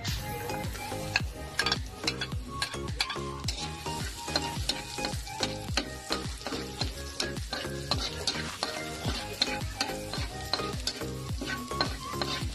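Chopped garlic sizzling in hot oil in an aluminium wok, stirred and scraped with a metal spatula. Background music with a steady beat, about two beats a second, plays throughout.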